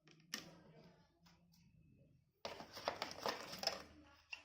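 Packaging being handled: a click, then about two seconds of crinkling and rustling in the second half as items are taken out of the box.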